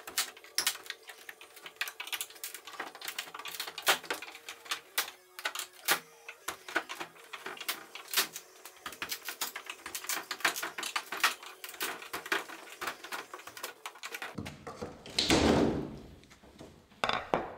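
Many quick, irregular clicks and knocks, followed by a short, louder rushing scrape about fifteen seconds in: the handling and unpacking of a large packed table saw.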